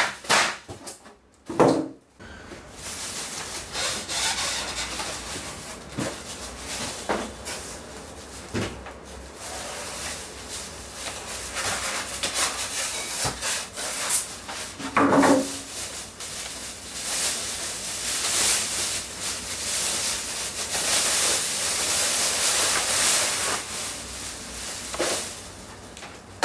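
Plastic packing bag rustling and crinkling as it is pulled off a flat-screen TV, with polystyrene foam packing pieces rubbing and knocking as they are handled. Occasional sharp knocks, the loudest about two seconds in and about fifteen seconds in.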